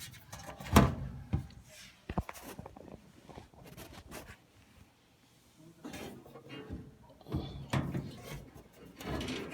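Knocks and clatter of an electric dryer's access cover being picked up and fitted back into place. One sharp knock comes about a second in, and a run of knocks and scrapes follows near the end.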